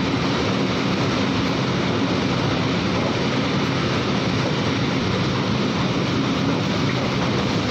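Freight train's open-top wagons rolling past at speed: a steady, unbroken noise of wheels on rail.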